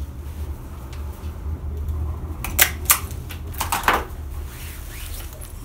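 Sharp plastic clicks and light rustling from a hand-held price-tag gun and paper tags being handled while tagging clothes: two clicks about two and a half to three seconds in, then a quick cluster near four seconds, over a steady low hum.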